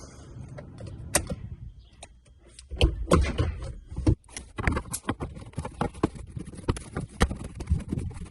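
Irregular clicks, taps and knocks of hard parts being handled and fitted. They are sparse at first and come thick and fast from about three seconds in.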